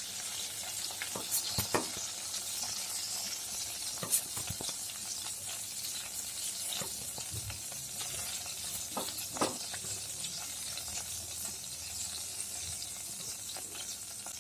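Hot oil sizzling steadily in a kadai as fried pointed gourd pieces are lifted out. A few sharp clicks of a utensil against the pan come about a second and a half in, around four seconds in, and twice near nine seconds.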